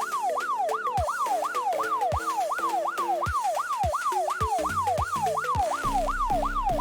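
Emergency-vehicle siren sound effect in a fast yelp, a falling wail repeating about three to four times a second. Underneath it runs background music with a steady beat, and a deep bass comes in near the end.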